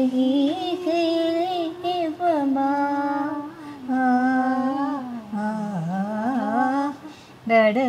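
A woman singing a slow, wordless tune unaccompanied, in long held notes with short breaks between phrases and a wavering pitch in the later phrase.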